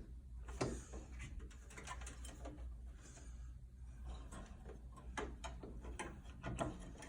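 Irregular small clicks and knocks of a replacement blower motor being handled and worked into place in an Amana PTAC heat pump, its shaft spline being lined up with the fan. The clicks come more often in the second half.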